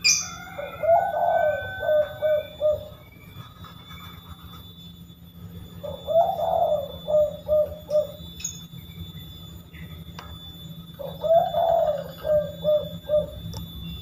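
Spotted dove (tekukur) cooing three times, each phrase a longer opening coo followed by three short 'kuk' notes: the rare 'kuk 3x' call variant. Faint chirps of other small birds in the background.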